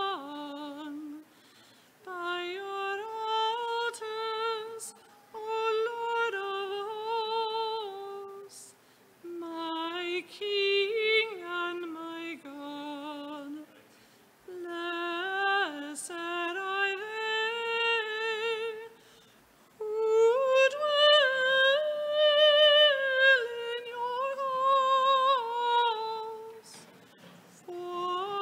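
A woman singing solo and unaccompanied: a slow communion chant or hymn in phrases of a few seconds with short pauses between them, her voice carrying a light vibrato.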